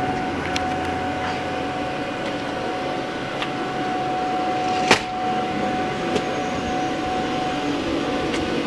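Electric blower fan of an inflatable bounce house running steadily, a constant hum with a steady whine, and a sharp click about five seconds in.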